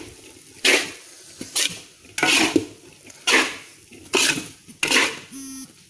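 A spatula scraping and knocking against a wok as a large batch of fried rice is stir-fried, a sharp stroke about every second. A brief steady hum sounds near the end.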